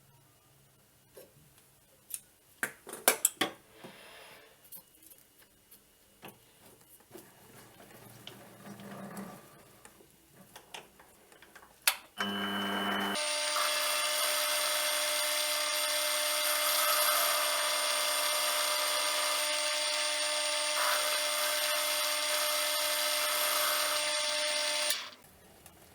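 Clicks and knocks of tools being handled. About twelve seconds in, a small lathe's electric motor starts with a short lower hum, then runs steadily with a high whine and hiss, and cuts off abruptly near the end.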